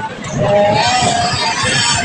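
Crowd hubbub: many people talking at once, with one voice or tune held on a wavering pitch for about a second, starting about half a second in.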